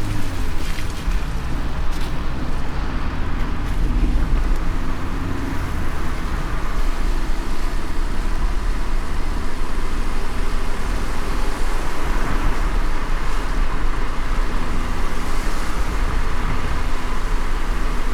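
Car driving in the rain: a steady low road rumble under an even hiss of rain and wet tyres.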